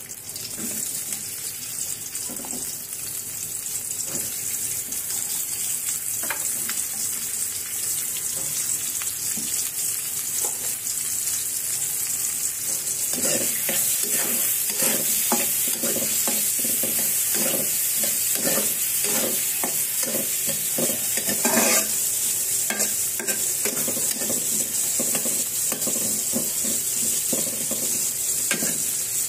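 Sliced onion sizzling as it fries in hot oil in a karahi for a tempering, the sizzle growing louder. From about halfway, a spatula stirs and scrapes the pan in quick repeated strokes for several seconds.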